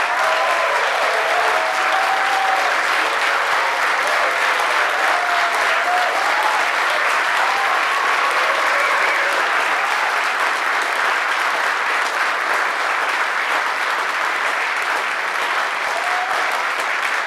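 Audience applauding steadily and loudly at the end of a talk, with a few voices calling out over the clapping in the first half.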